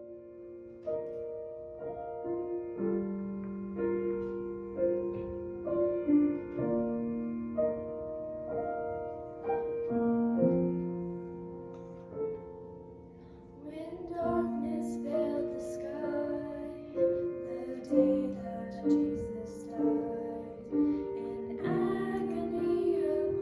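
Piano playing slow, held chords, with new notes struck about once a second.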